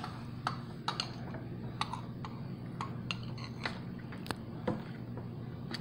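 Table knife scraping and tapping against a glass bowl while chocolate frosting is scraped out onto a cake: a string of light, irregular clicks over a steady low hum.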